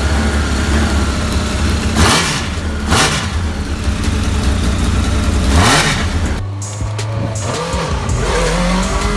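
Honda CBR1000 motorcycle inline-four engine in a Lotus 7-style race car idling and being revved sharply by hand three times, each rev rising and falling quickly. About six and a half seconds in it drops quieter, and the engine note climbs as the car pulls away.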